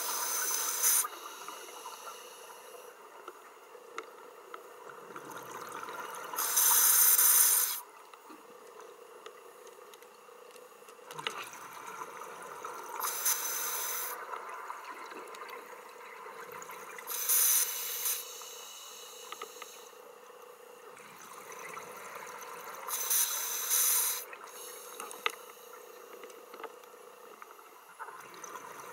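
Scuba diver's regulator breathing underwater: a rush of exhaled bubbles about every five to six seconds, each lasting about a second, over a faint steady hum.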